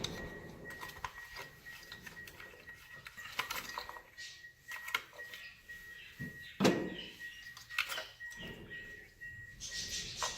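Clinks and knocks of a 2004 Toyota Corolla's ignition coils being pulled and swapped between cylinders by hand, with one louder knock about two-thirds of the way through and a faint steady high whine underneath.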